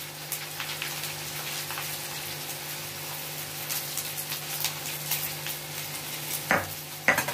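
Potato and bitter gourd pieces sizzling in hot mustard oil in a wok, with scattered fine crackles over a steady low hum. Two sharp knocks near the end.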